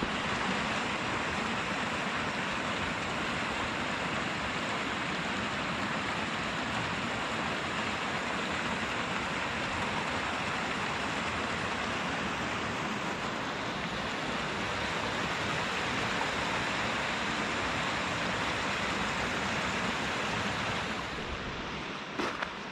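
Small mountain stream rushing over stones, a steady water noise that drops away a second or so before the end.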